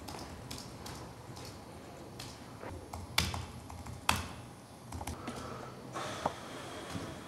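Typing on a slim aluminium Apple keyboard: irregular, scattered key clicks, with two louder keystrokes about three and four seconds in.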